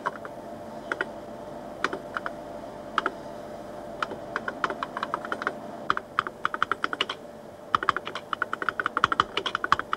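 Keys of a 1970s visual display unit keyboard being typed on: single keystrokes about once a second at first, then quicker runs of clicks from about four seconds in. A faint steady hum lies underneath.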